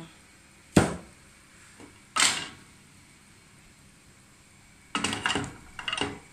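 Kitchen handling clatter around a frying pan on a gas stove: a sharp knock about a second in, another a second and a half later, then two short rattling clatters near the end.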